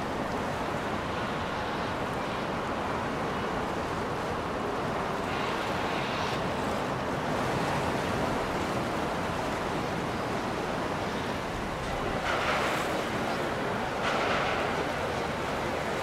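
Steady rushing of water with wind noise, swelling briefly a few times, around the middle and near the end.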